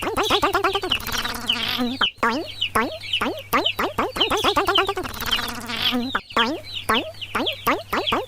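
Chicken clucks and squawks: a quick run of falling clucks, then a long wavering squawk. The same sequence repeats in an identical loop about every four seconds, over a steady low hum.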